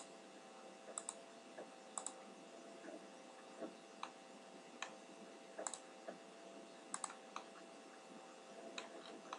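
Faint computer mouse clicks, single and irregularly spaced about once a second, over a steady low hum.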